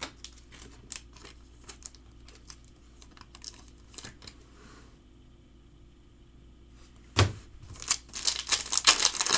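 Trading cards being handled, with scattered light clicks, then a sharp snap about seven seconds in and a dense crinkling of a foil card-pack wrapper being torn open near the end.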